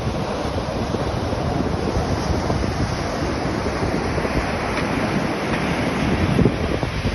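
Shallow surf washing up over the sand, steady throughout, with wind blowing on the microphone.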